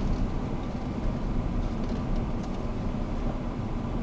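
Car heard from inside the cabin while driving: a steady low rumble of engine and road noise.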